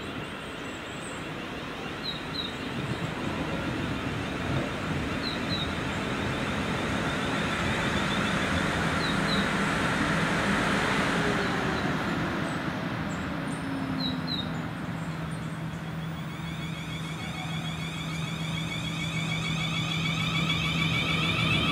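Class 450 Desiro electric multiple unit running into the station and slowing: wheel and running noise grows louder as it nears, with an electric whine that falls in pitch, then a steady hum and higher whine near the end as it brakes. Small birds chirp briefly a few times.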